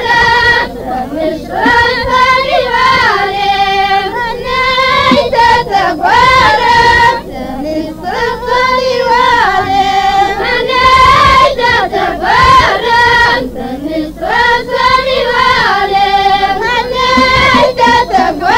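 A chorus of high voices singing an ahwach chant in unison, in long phrases that slide and waver in pitch.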